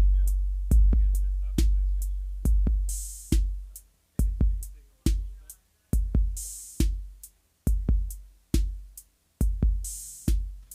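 Drum machine beat: deep kick drums with long, decaying booming tails in an uneven rhythm, and a short bright hissing swell about every three and a half seconds.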